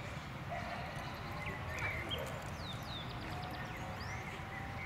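Outdoor ambience: a steady low rumble with scattered short, high chirps and whistles.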